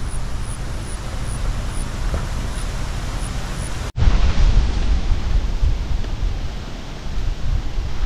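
Wind buffeting the microphone outdoors, a rough, fluctuating rumble with a rustling hiss above it. It cuts out for an instant about four seconds in and then carries on.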